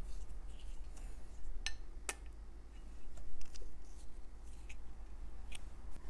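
A few light clicks and taps of paint tubes and a paintbrush being handled at a plastic paint palette, over a steady low hum.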